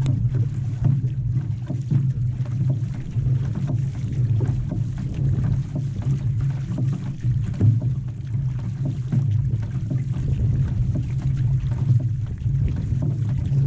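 Water rushing and splashing along the hull and float of an outrigger canoe under paddle: a steady low rush with scattered splashes.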